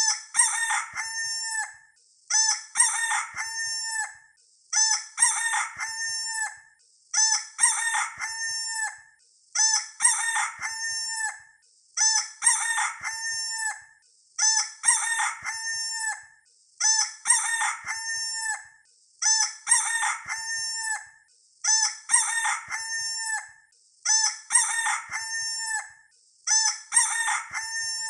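A rooster crowing cock-a-doodle-doo over and over, the same crow repeating about every two and a half seconds, about a dozen times.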